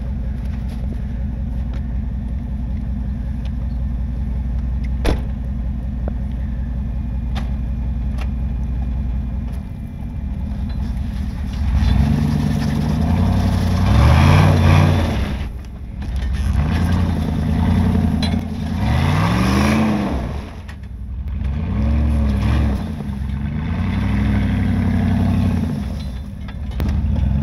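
A vehicle engine idling steadily, then from about ten seconds in revved hard under load in repeated surges, its pitch rising and falling five or six times, as it strains to tow a pickup stuck in deep snow. The tracks dig into the snow rather than pulling it free.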